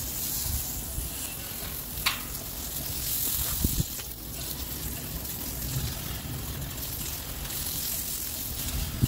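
Garden hose with a jet spray nozzle spraying water onto a concrete kennel floor: a steady hiss, with a couple of short knocks about two and three and a half seconds in.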